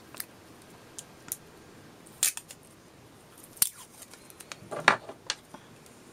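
Scattered sharp clicks and snips of small scissors and a roll of shiny tape being handled as a piece of tape is cut. About seven short clicks, the loudest a little over two seconds and about three and a half seconds in.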